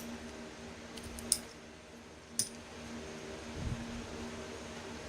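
Three sharp clicks about a second apart, then a dull low knock a little past halfway, from small metal parts and tools being handled while the universal joint's retaining clips are fitted. A steady hum runs underneath.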